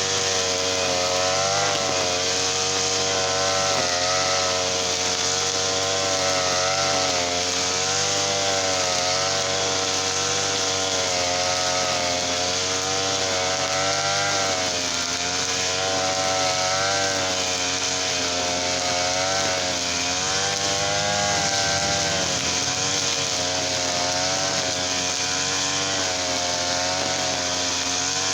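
Small two-stroke brush cutter engine (TL33 type) running steadily at working speed, its pitch wavering slightly up and down.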